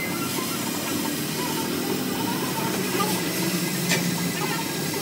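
Oxy-fuel cutting torch hissing steadily as its flame cuts around the steel centre plate of a wheel rim, with one sharp click about four seconds in.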